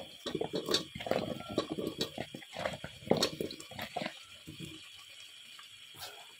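Wet raw potato chunks dropped by hand into a pressure cooker of onion-tomato paste: a quick, irregular run of soft wet plops and knocks that dies away about four and a half seconds in.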